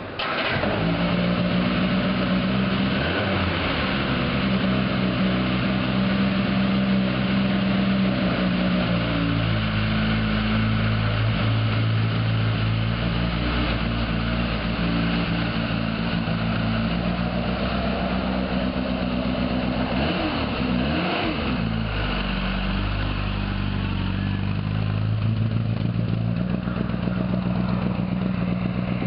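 1970 MG Midget's 1275 cc A-series four-cylinder engine running steadily, its note shifting up and down a few times as the car moves off, with a short rise and fall about twenty seconds in.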